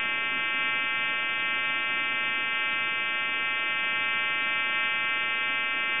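Steady buzzing hum heard over a telephone line, cutting into a time-and-temperature recording: a fault in the recording service's equipment, not in the telephone.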